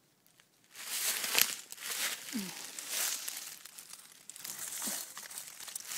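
Dry fallen leaves rustling and crunching as someone moves over them, starting about a second in, with many small sharp crackles.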